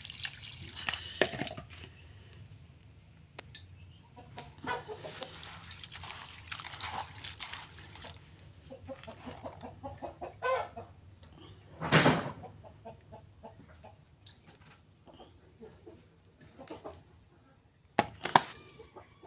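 Chickens clucking, in short broken calls, with a few sharp short sounds over them, the loudest about twelve seconds in.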